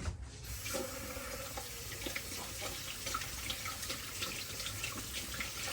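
Water running steadily from a tap, turned on about half a second in.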